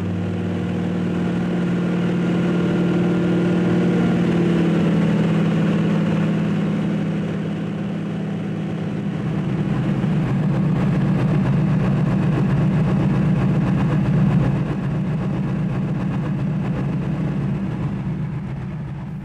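Floatplane engine running, heard from inside the cabin. The sound turns louder and rougher about halfway through, then eases off a little.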